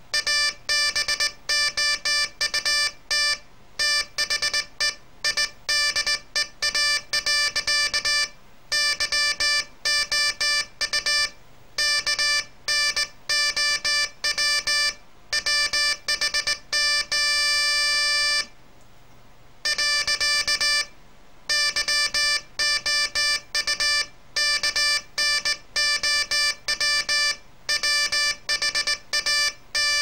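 Morse code sent by hand on a straight key, keying a homemade oscillator's buzzy, steady-pitched tone on and off in quick dots and dashes. A little past halfway one long held tone sounds, followed by a pause of about a second before the keying resumes.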